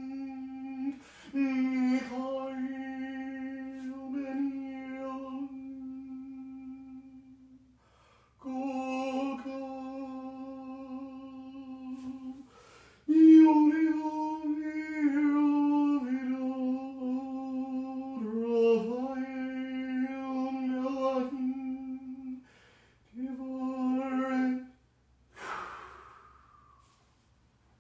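A man's voice intoning long, drawn-out syllables on a steady pitch, in phrases of several seconds separated by short pauses: ritual vibration of sacred names. A short breathy rush comes near the end.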